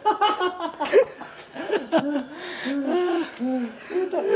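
A man laughing in a run of short, low hoots, each rising and falling in pitch, about five in a row in the middle.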